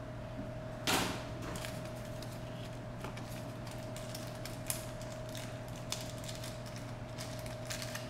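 Small plastic parts box and bag being handled while unpacking a replacement micro drone motor: one short scrape about a second in, then scattered small clicks and rustles, over a steady faint hum.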